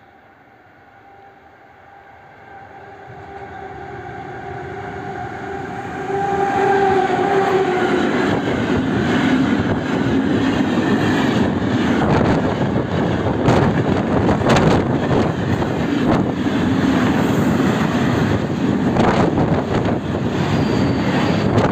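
PKP ET22 electric locomotive hauling a train of open coal wagons approaches and passes at speed. Its steady hum grows louder and drops in pitch as it goes by, about seven seconds in. Then the wagons' wheels clatter continuously over the rail joints.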